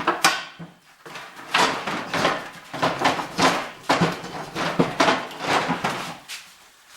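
Irregular clanking and knocking of hard parts being handled and struck, several hits a second, with a short pause about a second in.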